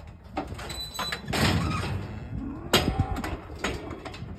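Clanks and rattles of a steel Arrowquip cattle squeeze chute with a cow moving inside it, with a sharp metal bang a little under three seconds in.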